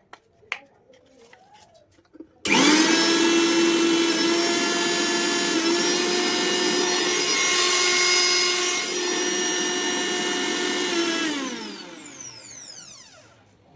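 Bajaj mixer grinder motor switched on, running steadily at speed with a high whine, then switched off and spinning down with a falling pitch near the end.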